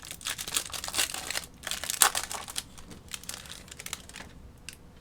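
Crinkling plastic handled while a trading card pack and card sleeves are worked open: a run of irregular crackles that thins out near the end, with one last small click.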